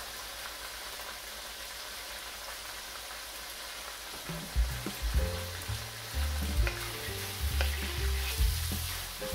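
Chicken pieces sizzling in oil in a nonstick wok. From about four seconds in, a wooden spatula stirs them, with irregular low thumps and knocks.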